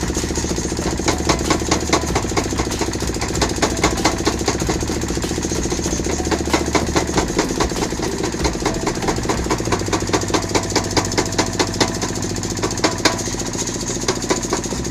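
Power hammer forging a red-hot bar, striking in rapid, regular blows over the steady running of its motor.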